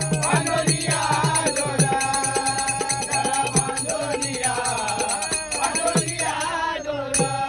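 Men singing a Marathi devotional bhajan together, with a pair of brass hand cymbals (tal) struck in a fast steady rhythm, hand clapping, and a low beat of about four strokes a second.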